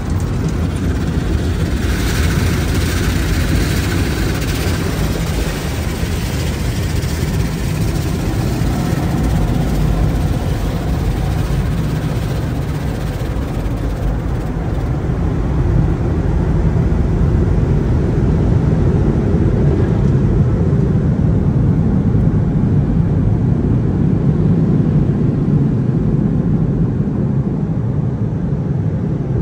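Automatic tunnel car wash heard from inside the car: water jets spraying on the glass and body while spinning cloth brushes rub and slap over the car, a loud steady rumble. The spray's hiss is strongest in the first few seconds, and the low rumble of the brushes grows heavier in the second half.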